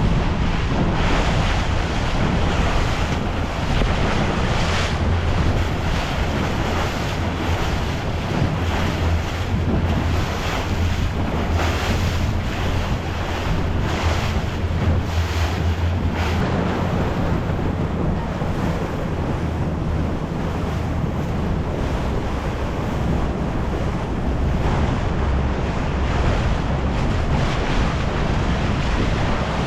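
Motorboat running steadily at speed, its motor a constant low drone under the rush of water along the hull, with heavy wind buffeting the microphone in gusts.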